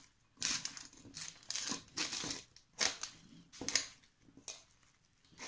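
A hand mixing cauliflower florets into a flour and chilli-powder coating in a steel bowl: a run of short, irregular squishing and scrunching strokes that stop about four and a half seconds in.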